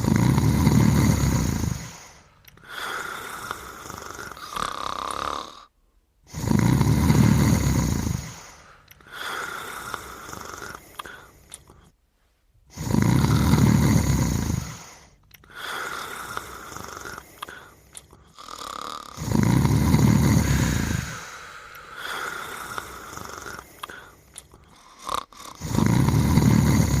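Cartoon snoring from a sleeping character and dog, in a repeating cycle. A loud, deep snore comes about every six and a half seconds, each lasting about two seconds. Between the snores comes a quieter, higher-pitched wheezy breath out.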